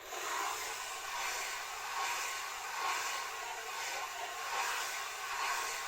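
Hair dryer blowing a steady rush of air, switching on abruptly at the start, its level swelling and easing gently about once a second.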